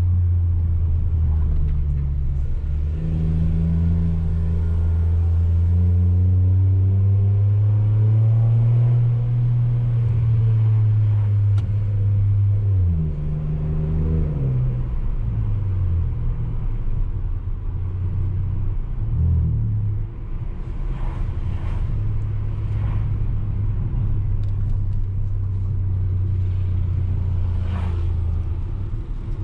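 Ford Ka 1.5 three-cylinder engine and exhaust, with a universal JK muffler in place of the rear muffler, heard from inside the cabin while driving. A low exhaust drone rises in pitch under acceleration and drops back as the automatic gearbox shifts up, twice in the first half, then holds steady at cruise.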